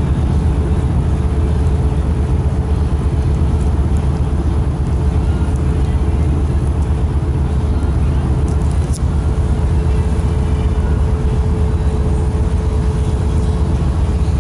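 Steady low drone of a Moskva-type river passenger boat's diesel engine running under way, heard on deck, with a faint steady whine above it.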